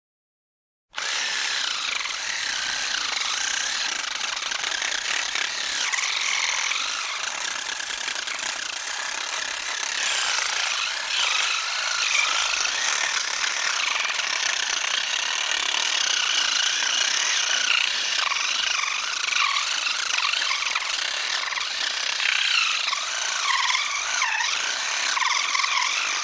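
Electric screwdriver running continuously after a brief silence, starting about a second in: a mechanical whirring whose pitch wavers up and down.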